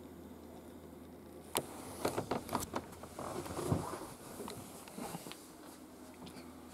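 A run of sharp clicks and knocks about one and a half to three seconds in, followed by rustling handling noise and a few fainter knocks, over a steady low hum.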